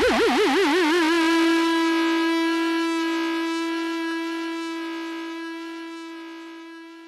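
Background music ending on one long held note: it wavers widely in pitch for about the first second, then holds steady and slowly fades out.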